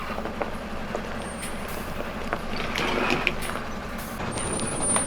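Heavy truck engine running steadily, with a few short knocks.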